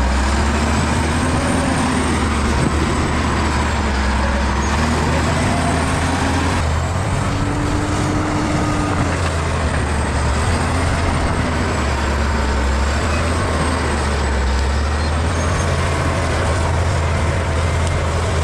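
Bulldozer's diesel engine running steadily under load, a deep continuous rumble with a thin high whine that wavers in pitch.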